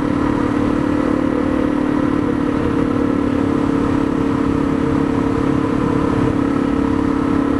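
Honda CRF dual-sport motorcycle's single-cylinder engine running at a steady pitch while cruising on a gravel road, over a constant rush of wind and tyre noise.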